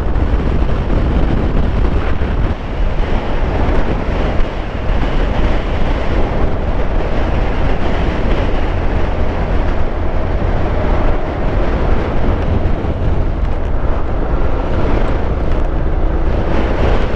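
Wind rushing over the camera microphone on a moving motorcycle, with the 2019 Honda NC750X's parallel-twin engine running underneath, steady throughout.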